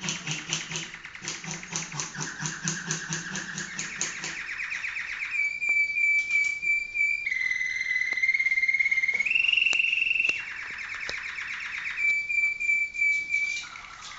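Malinois (Waterslager) canary singing: rapid rolling trills for the first few seconds, then long pure whistled notes held at one pitch that step down and back up, with a stretch of trills between them, breaking off shortly before the end.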